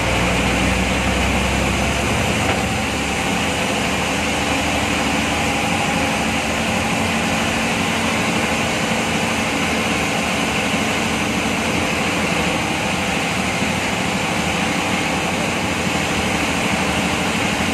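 State transport bus's diesel engine running steadily, heard from the driver's cabin over a constant haze of tyre and road noise. The deep low rumble drops away about two seconds in, leaving a higher, steady engine hum.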